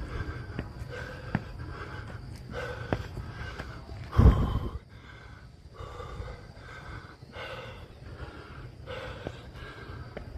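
A man breathing hard and heavily, out of breath from climbing a long flight of stairs, breath after breath. About four seconds in there is a loud short low rush, a blast of breath or wind on the microphone.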